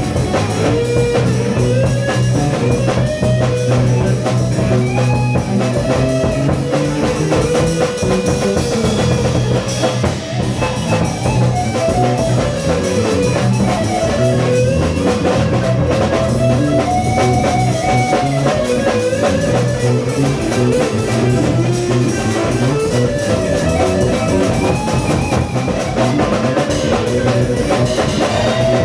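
Rock band improvising: a guitar plays a wandering lead line with sliding, bending notes over a steady low bass part and a drum kit with busy cymbals, continuous and loud.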